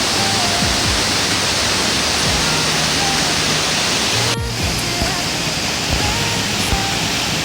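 Steady loud rush of a mountain stream's rapids and falling water, with a sudden break about four seconds in after which it is slightly quieter.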